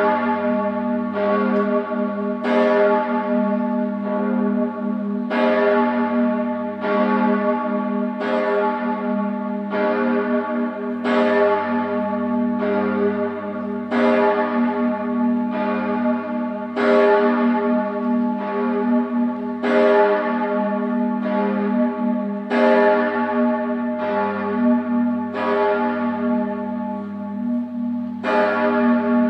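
The largest bell, a 1957 Bochumer Verein cast-steel bell tuned to A-flat, swinging and tolling on its own, its clapper striking about every one and a half seconds. Its deep hum rings on between strokes. This is the Friday tolling for the hour of Christ's death.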